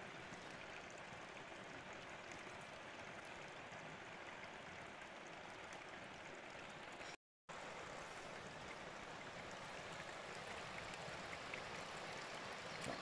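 River water flowing over stones: a steady rushing, cut off for a moment about seven seconds in.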